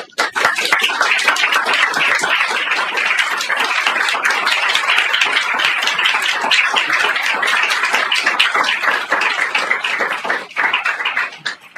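Audience applauding in a small lecture room, a steady dense clatter of many hands that thins out and dies away near the end.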